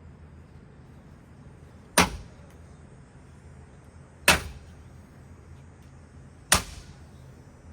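Three sharp impacts about two seconds apart, each a hard crack with a brief ringing tail, over a low steady hum: blows striking a Hampton Bay Minuet II ceiling fan as it is smashed.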